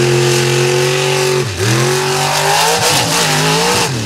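Mega truck engine running hard at racing speed. Its pitch dips sharply and climbs again about a second and a half in, and falls away near the end.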